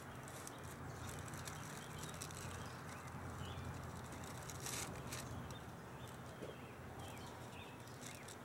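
Quiet outdoor background: a steady low hum with a few faint bird chirps and scattered light ticks.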